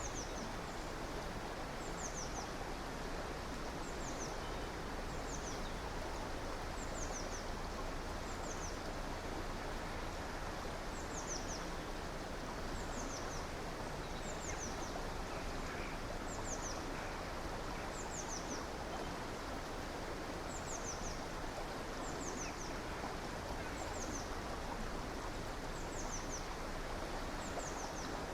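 Steady rushing of a flowing river. A bird repeats short, high chirps that fall in pitch, in twos and threes, about once a second.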